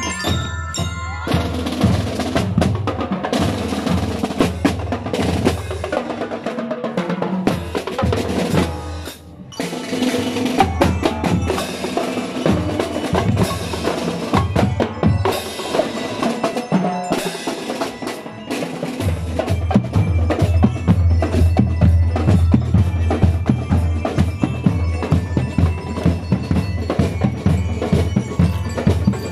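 Marching drum and lyre corps playing: metal bar bell lyres ringing out a melody over snare, tenor (quad) and bass drums in a steady beat. There is a brief break about nine seconds in, and the bass drums come in heavily about two-thirds of the way through.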